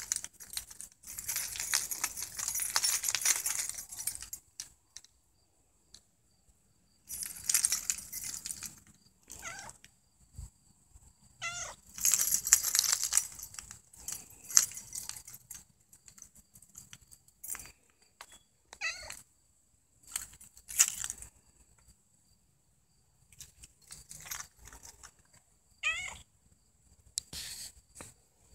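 Cat meowing several times in short, pitch-bending calls, between bursts of hiss-like noise.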